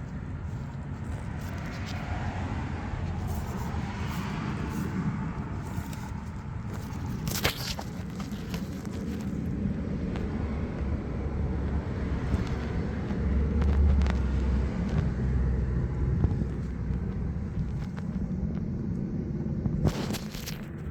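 Volvo T5 turbocharged five-cylinder engine running steadily with a knock that is taken for piston slap.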